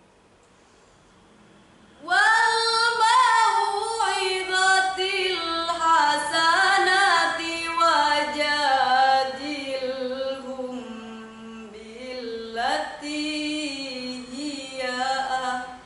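A girl reciting the Qur'an in Arabic in the melodic tilawah style: one voice in long, ornamented held notes that glide up and down. It starts about two seconds in, with a short breath and a new phrase about two-thirds of the way through.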